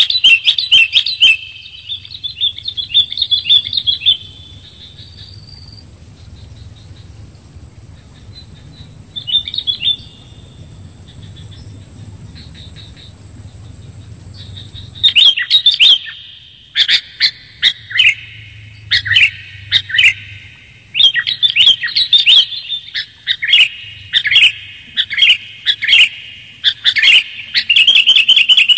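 Sooty-headed bulbul (kutilang) calling: clear chattering phrases in the first few seconds, a short phrase near ten seconds, then a long run of repeated calls from about fifteen seconds on, densest near the end.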